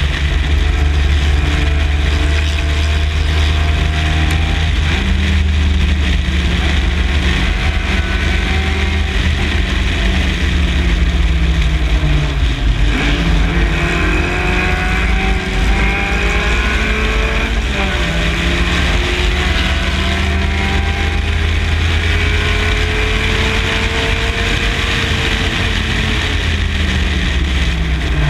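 MG Midget's four-cylinder engine at racing speed. Its pitch climbs steadily under acceleration and drops sharply twice, about halfway through and again a few seconds later, as the revs come down for the corners, over a heavy low rumble.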